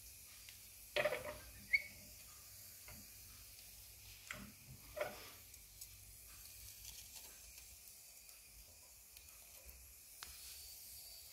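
Faint steady hiss of a wood fire burning down to embers in a stove, with a few short scrapes and clicks of a metal utensil against the stove as bread is held over the embers to toast. The loudest scrape and a sharp click come about a second in, with smaller ones around four to five seconds and near the end.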